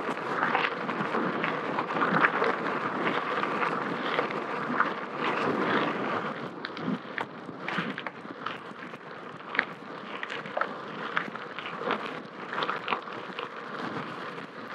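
Bicycle rolling fast downhill on a dirt and gravel road, with wind rushing over the helmet-camera microphone. Frequent small clicks and crackles come from the tyres on the loose surface and from the bike rattling over it.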